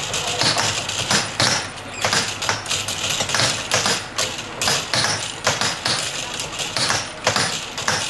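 Rapid, irregular wooden clacking and knocking, several knocks a second over a steady hiss, from a wooden salt-spreading box cart and its roller mechanism as it is pushed along, laying a layer of salt.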